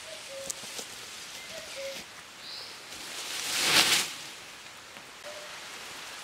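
A large bundle of freshly cut leafy branches dropped onto the ground, a loud rustling crash of leaves and twigs rising to a peak about three and a half seconds in, over a steady outdoor hiss.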